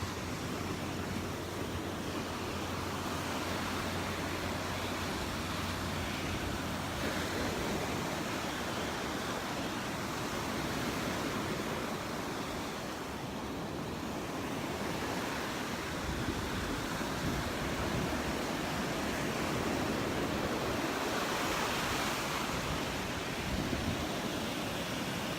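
Gulf surf washing onto the beach in a steady hiss that swells and eases, with wind buffeting the microphone.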